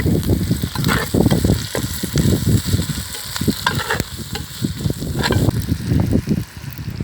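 Chicken frying in a cooking pot, sizzling with a steady hiss while it is stirred, with irregular scraping strokes throughout.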